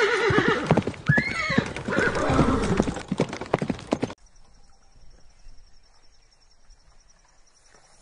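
A horse whinnying in a long quavering neigh over galloping hoofbeats, with a second, shorter neigh about a second in. The sound cuts off suddenly about four seconds in, leaving a faint steady high-pitched trill.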